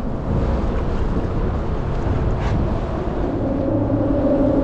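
Wind rumbling on the microphone over choppy water, with a steady low hum coming in about three and a half seconds in.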